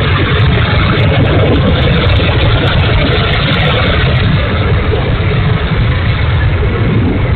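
Twin 64 mm electric ducted fans of an E-flite A-10 Thunderbolt II RC jet running in flight, a steady loud rushing noise; the pilot judges one of the motors to be bad.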